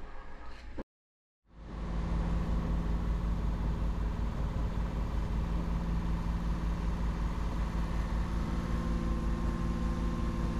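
Sailboat's engine running steadily under motor, a constant low hum heard from inside the cabin. It starts right after a moment of dead silence about a second in.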